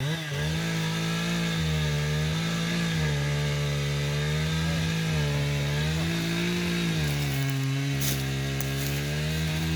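Two-stroke chainsaw running at steady high revs, with a few brief clicks about eight seconds in.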